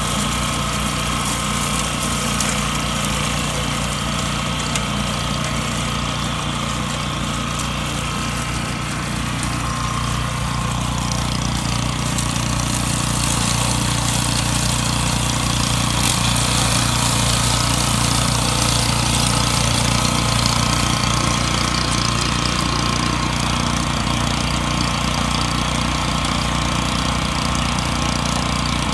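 Small petrol engine of a grass cutter running steadily, with no stops or sharp revs.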